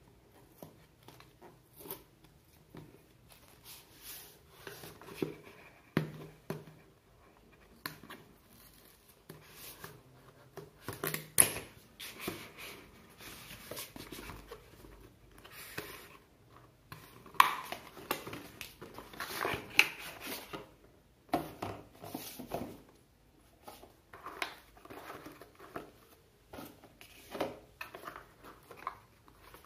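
Cardboard retail box being opened by hand: flaps pulled open and an inner paperboard box slid out and turned over, giving irregular rustling, scraping and sharp taps, the sharpest about 11 and 17 seconds in.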